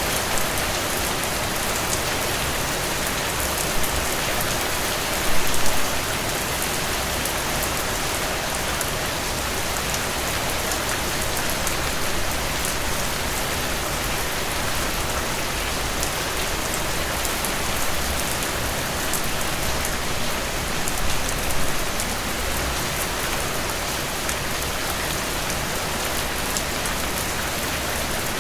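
Heavy, steady downpour: dense rain hissing on a surface with many individual drops, slightly louder spells about five seconds in and near twenty seconds in.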